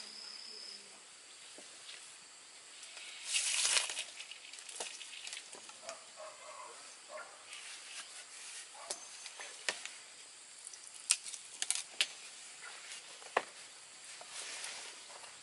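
Green bamboo poles being handled and twisted together into a chair frame: scattered light knocks and clicks of bamboo on bamboo, with a short scraping rustle about three and a half seconds in.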